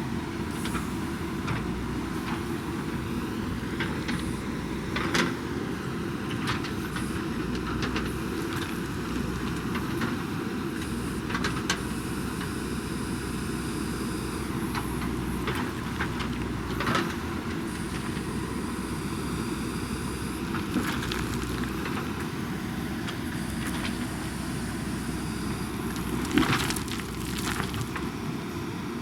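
JCB backhoe loader's diesel engine running steadily while it works, with occasional sharp knocks and clanks, the loudest near the end.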